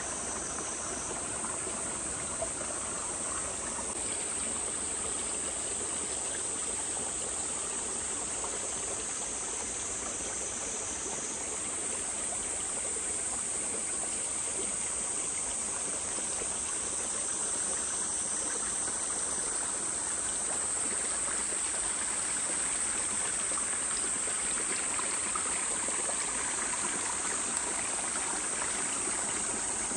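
A stream running steadily, with a constant high-pitched insect chorus over it.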